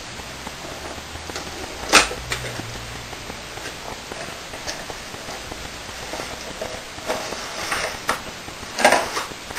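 Cardboard retail box being opened and its inner tray slid out by hand: a sharp snap about two seconds in, then soft scraping and rustling of cardboard and paper, with louder rustles near the end.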